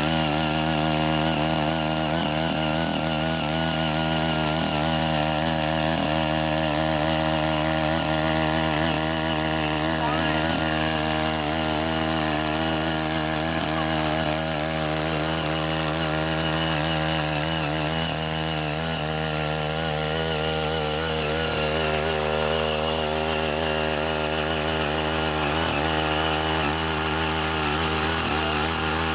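Small petrol engine of a CY80 garden tiller running steadily under load while its rotary tines churn through untilled, grassy soil. The engine note wavers slightly.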